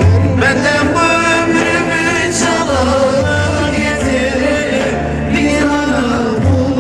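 Live Turkish song: a man singing into a microphone with wavering, ornamented lines, accompanied by an electronic keyboard with a steady bass.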